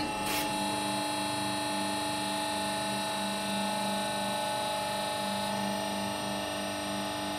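Hydraulic press power unit running with a steady mechanical hum and a pulsing low drone while the ram retracts. A single sharp crack sounds just after the start, from the crushed M8 bolt under the press.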